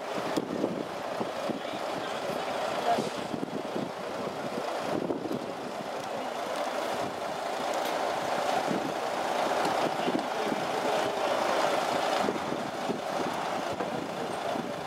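Mercedes-Benz Actros truck's diesel engine running as the truck rolls slowly forward, growing a little louder in the second half.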